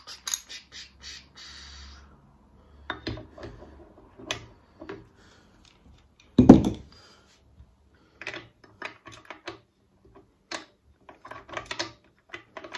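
Metal clicks and clinks of a socket wrench and sockets being worked on the lawnmower's bolts, in short irregular clusters, with one louder knock about halfway through.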